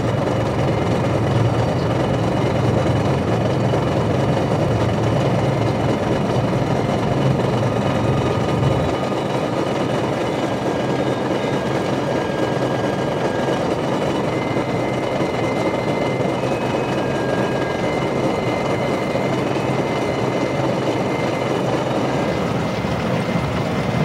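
A steady low mechanical rumble with a hiss spread over it. The deepest part of the hum drops away about nine seconds in.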